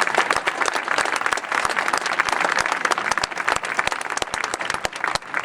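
Crowd applauding, many hands clapping, thinning a little near the end.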